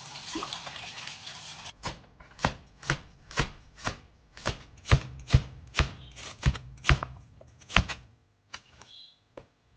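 A dozen or so sharp, even knocks, about two a second, after a short stretch of hiss; a few fainter clicks near the end.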